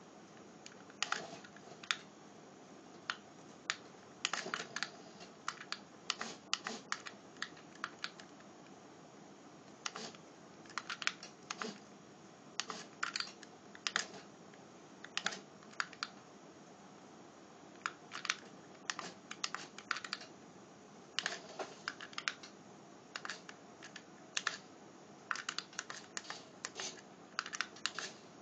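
Light plastic clicks in irregular clusters, several quick clicks then short pauses, as a micro RC truck and its remote control are worked while it drives.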